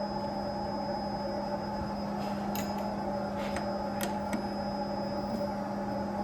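Steady electrical-mechanical hum in a boiler room, with a handful of light, irregular metallic clicks and clinks from about two to four and a half seconds in, as tools and metal parts are handled while the boiler's burner assembly is unbolted.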